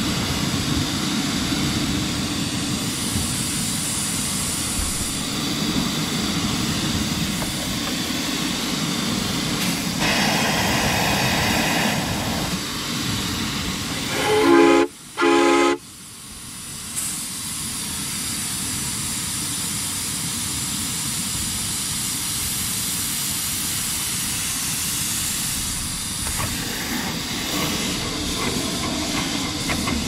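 Live-steam miniature steam locomotive hissing steadily with steam up, then two short blasts on its steam whistle about halfway through, the standard two-blast signal that the train is about to move off. It then gets under way, its hiss continuing.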